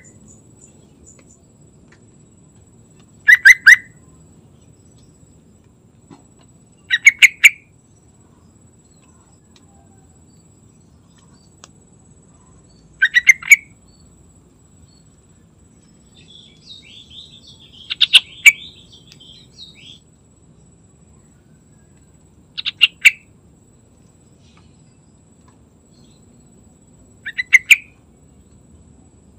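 Yellow-vented bulbul singing: six short phrases of quick chirping notes a few seconds apart, with a longer, softer run of chattering notes a little past halfway.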